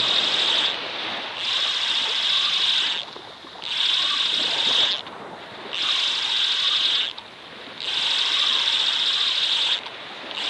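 Spinning fishing reel being cranked to wind in line after a long surf cast. It makes a whirring buzz in bursts of one to two seconds with short pauses between, about every two seconds.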